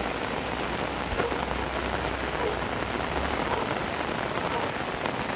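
Heavy rain falling steadily on a wet paved road and roadside plants, an even hiss.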